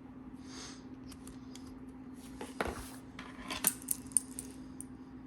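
Small hard clicks, taps and brief rustles of the Polywatch tube and watch being handled while more cream is applied, the sharpest clicks about four seconds in, over a faint steady hum.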